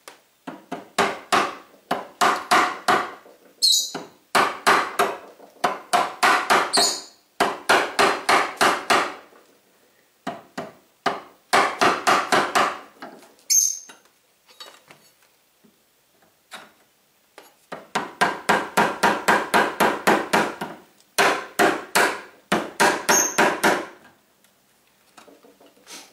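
Quick runs of hammer taps, about five a second, in bursts of one to three seconds with short pauses and one longer lull in the middle. A tool is being driven under the metal head-support bracket on a pinball machine's wooden cabinet to work the nails loose.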